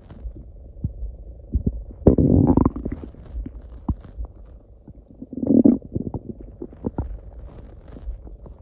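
A person's stomach growling loudly: two long gurgling rumbles, about two seconds in and about five and a half seconds in, with small pops and gurgles between them.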